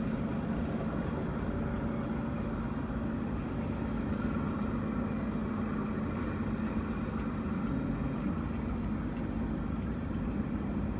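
BNSF freight train of oil tank cars rolling past, a steady rumble with a low drone.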